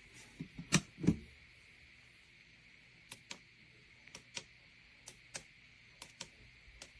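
Scattered light clicks and taps, two louder ones about a second in and fainter ones spaced irregularly after, over a faint steady hiss.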